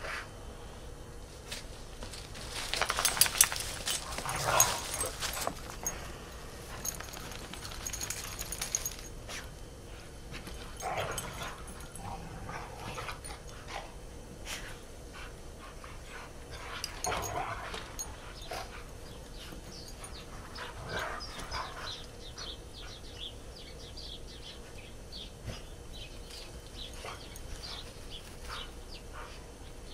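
Dogs playing in snow, making scattered bursts of dog sounds several times, loudest a few seconds in.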